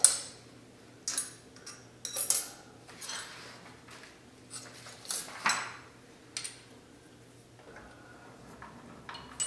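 Metal tools and lathe tooling being handled, making about seven irregular metallic clinks and clanks. A faint steady hum runs underneath.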